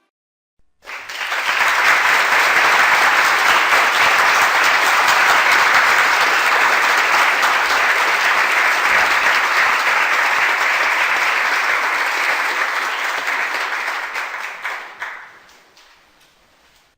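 A crowd applauding: a dense spatter of many hands clapping that starts suddenly about a second in, holds steady, then dies away near the end.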